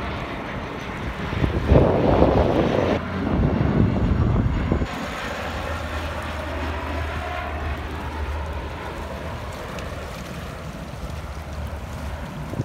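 Dash 8-400 turboprop airliner passing low on its landing approach, a steady drone of its engines and propellers. Wind buffets the microphone, loudest about two to five seconds in.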